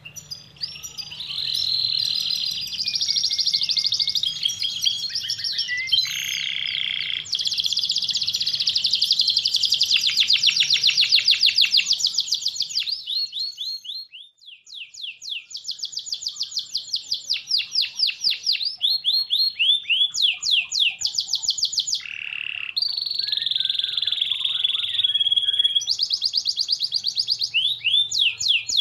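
Domestic canary singing a long song of rapid trills, each phrase a fast run of one repeated note that gives way to another every second or two, with a brief lull about halfway through.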